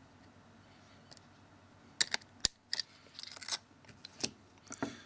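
Small sharp clicks and taps from handling an opened smartphone and its parts, scattered from about two seconds in, with a brief scratchy rustle in the middle.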